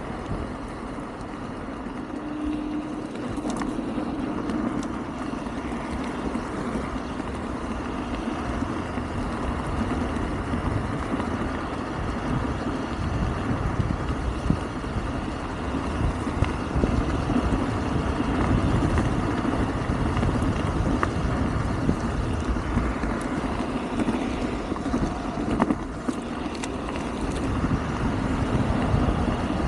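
Riding noise from a Wolf King GT Pro electric scooter underway: a steady rumble of wind and road noise with occasional small knocks from the path.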